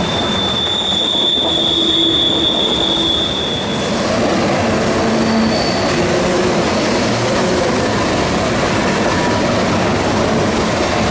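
CN grain train's cars rolling past with steady wheel and rail noise. A high, steady wheel squeal sounds for the first few seconds, and a shorter, higher squeal comes about five seconds in.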